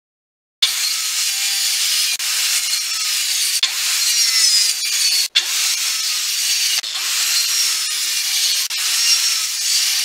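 Handheld circular saw cutting through a wooden board, starting about half a second in: a steady, hissing cut with a few short breaks.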